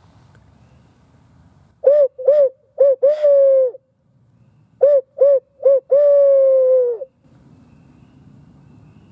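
Owl hooter call blown by mouth, giving two barred-owl phrases of three short hoots and one longer hoot that falls away at the end. It is a locator call, meant to make roosting turkey gobblers answer with a gobble.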